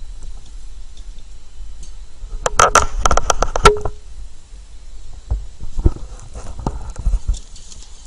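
Wire birdcage rattling: a quick run of sharp metallic clicks and rattles about two and a half seconds in, then a few scattered single knocks.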